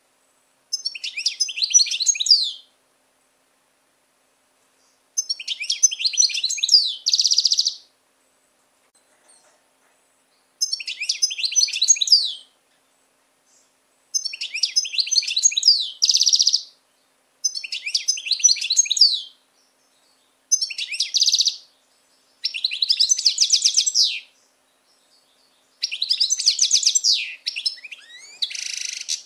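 Caged European goldfinch singing: about eight bursts of fast, high twittering song, each around two seconds long with short pauses between, several ending in a buzzy note.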